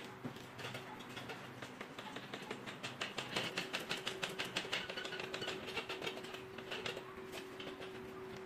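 Rapid mechanical clicking, several clicks a second, loudest about three to five seconds in, over a steady hum.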